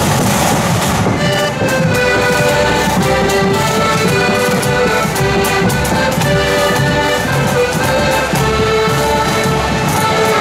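Marching accordion band of piano accordions playing a march tune in unison, held chords and melody over a steady beat.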